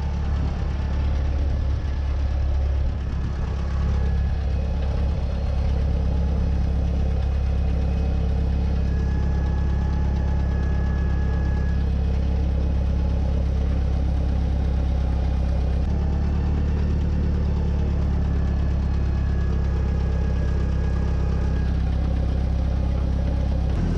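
1967 International Harvester 424 tractor's four-cylinder engine running steadily, heard close up from on board, while the tractor pulls a grading blade along a gravel driveway.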